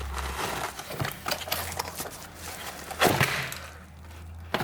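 A screwdriver set being worked out of its box by hand: scraping and rustling with irregular light knocks and clicks, loudest about three seconds in.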